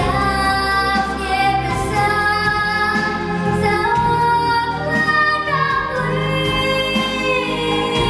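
A young girl singing solo into a microphone over a recorded backing track, holding long notes that step up in pitch and then fall away.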